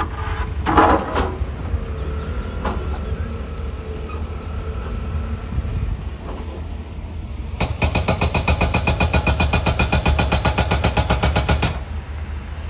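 Low, steady rumble of a vehicle's engine, with a few knocks about a second in. From about eight seconds in, a pulsing tone of steady pitch sounds for about four seconds, then cuts off.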